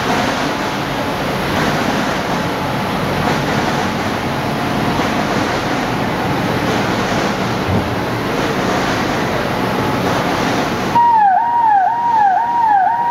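Mitsubishi D3000-6 offset printing press running, a steady mechanical noise. About eleven seconds in, the noise cuts off and a repeated falling electronic warning tone sounds, about two and a half sweeps a second.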